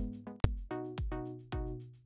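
Background electronic music: a beat about every half second with short, decaying synth notes.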